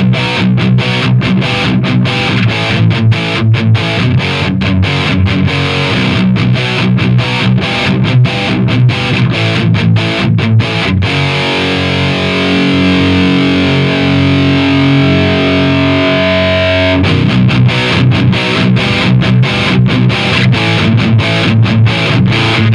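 Heavily distorted electric guitar played through a Diezel VH2 tube amp into a Marshall 4x12 cabinet: tight, choppy metal riffs with abrupt stops. About halfway through, a chord is let ring for several seconds before the riffing picks up again.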